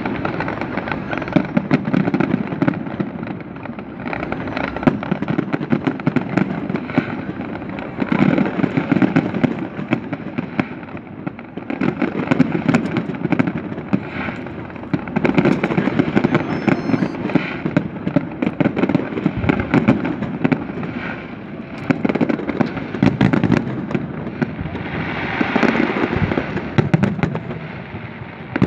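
Fireworks display: a dense, continuous crackle of bursting shells with heavy thuds, swelling and easing in waves every few seconds, with a longer hissing, crackling swell near the end.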